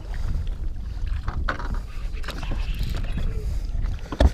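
Wind buffeting the microphone as a steady low rumble, with a few sharp knocks and one heavy thump near the end.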